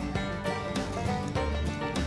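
Background music with a steady rhythm.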